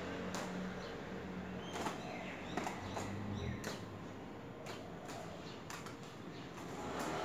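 Faint outdoor ambience: a steady low hum with scattered light clicks and a few short bird chirps about two seconds in.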